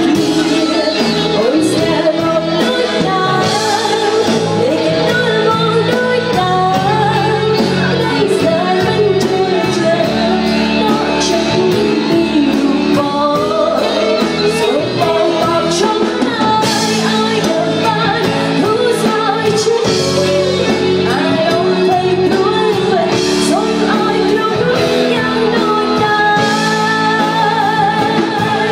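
Live Khmer pop song played by a band with a woman singing, with regular cymbal or hi-hat strikes, heard in a large hall.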